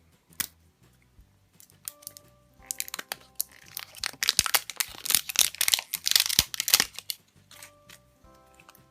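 Wrapper of a Chupa Chups surprise egg crinkling and tearing as it is opened. A few crackles come first, then dense crinkling from about three and a half to seven seconds in, with faint background music.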